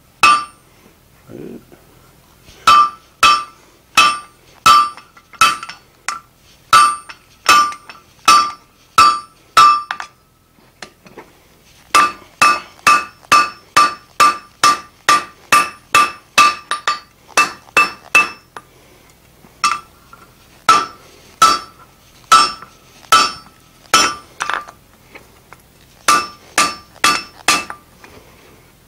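Hand hammer striking a red-hot steel bar over a fuller on the anvil, drawing out the end of a hardy: runs of ringing blows about two a second, with short pauses about ten seconds in and again near the end.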